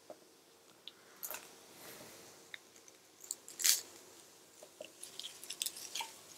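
Garlic cloves being broken off a bulb by hand: the dry papery skins crackle and crunch in a series of short, irregular crackles, the loudest a little past halfway.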